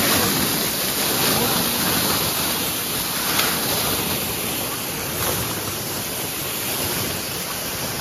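Loud, steady rushing water, like a swollen mountain river or stream in spate.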